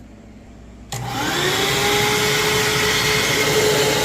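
Hoover WindTunnel Anniversary upright vacuum switched on about a second in: the motor winds up with a rising whine and settles into a steady high whine over a loud rush of air.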